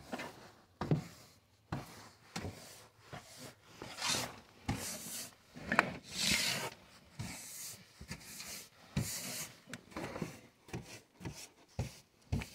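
Broom bristles sweeping dirt and debris off a wooden surface: irregular scraping swishes, with a few sharp knocks of the broom against the wood.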